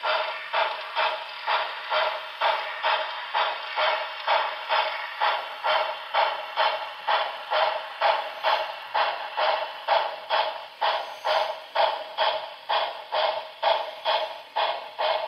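Broadway Limited Reading T1 4-8-4 model steam locomotive's onboard sound system playing a steady beat of exhaust chuffs, about two and a half a second, as it pulls the train.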